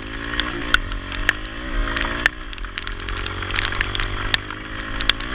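Kawasaki KLX110 pit bike's small single-cylinder four-stroke engine running while ridden, its pitch swelling and dropping back a few times as the throttle is worked. Scattered sharp ticks come over it.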